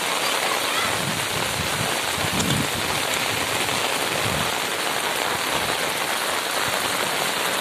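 Heavy rain pouring steadily, a dense even hiss, with a few low rumbles in the first half.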